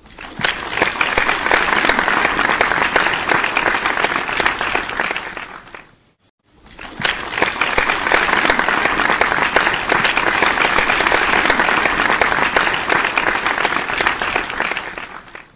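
Crowd applauding in two stretches: about six seconds of applause that fades out, a short silence, then about nine seconds more that swells up and fades away near the end.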